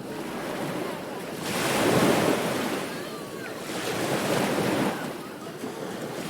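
Ocean surf on a beach: a steady wash of water with two waves breaking, the first and louder about a second and a half in, the second about two seconds later.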